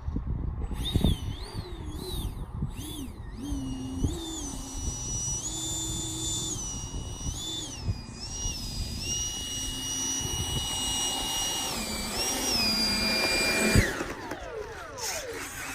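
Electric ducted fan of a Flex Innovations FlexJet RC jet whining in flight, its pitch stepping up and down with the throttle, then falling sharply near the end. Wind rumbles on the microphone underneath.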